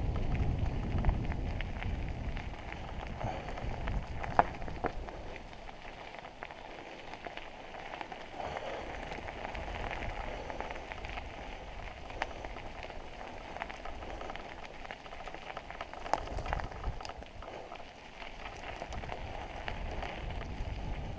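Mountain bike tyres rolling over a dry dirt trail strewn with leaves and twigs, a steady crackling hiss with scattered clicks and rattles. Wind rumbles on the microphone in the first few seconds and again near the end.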